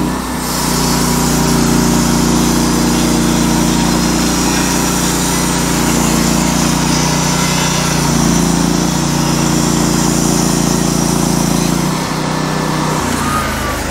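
Gas engine of a Norwood LumberMate portable bandsaw mill running steadily at speed as the band blade cuts through a log. About twelve seconds in the engine note changes and drops slightly in level.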